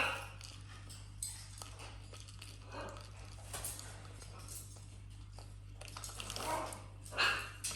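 A parrot chewing and tearing at a toy: scattered clicks, clinks and short scraping rattles at irregular moments, with louder bursts about three, six and a half and seven seconds in.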